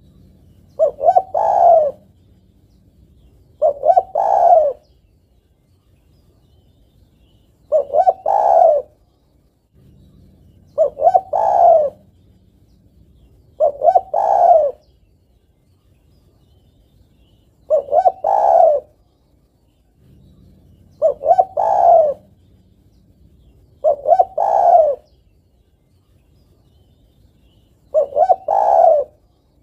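Female spotted dove cooing to call a male: nine phrases, each a couple of short notes running into a longer coo about a second long, repeated every three to four seconds.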